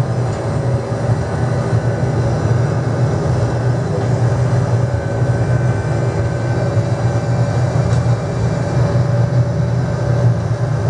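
A DC-10 jetliner's engines at takeoff power: a loud, steady low rumble that comes in abruptly at the start and holds.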